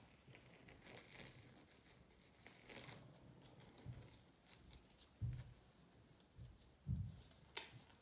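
Faint rustling and stretching of disposable exam gloves being pulled onto the hands, with two soft low thumps about five and seven seconds in and a sharp click just after the second.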